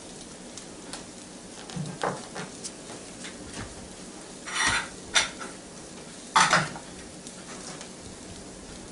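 An egg frying in a Copper Chef square ceramic nonstick pan, with a steady faint sizzle. A few short clatters of a utensil against cookware come about two, four and a half, five and six and a half seconds in.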